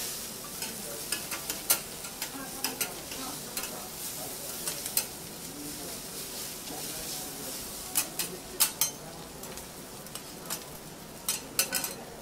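Yakisoba noodles sizzling on a hot steel teppanyaki griddle, with sharp clacks of metal spatulas against the plate. The clacks come now and then, in quick clusters about eight seconds in and again near the end.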